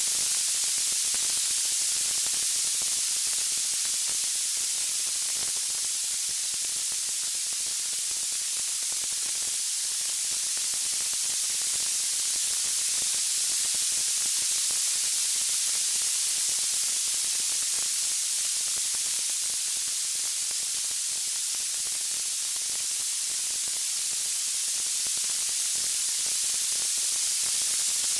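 Steady white-noise hiss, weighted toward the high end, swelling and easing slowly with no distinct pops or crackles.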